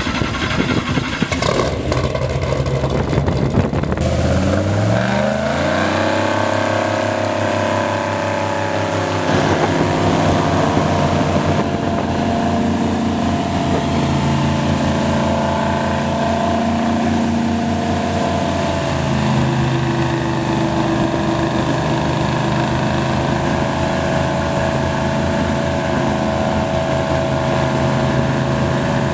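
Airboat's Chevrolet big-block V8 engine and propeller, revving up about five seconds in, then running steadily at speed.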